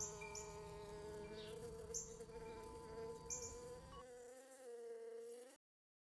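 Bumblebee buzzing steadily, its pitch wavering a little, with faint wind chime bells ringing behind it. The sound cuts off about five and a half seconds in.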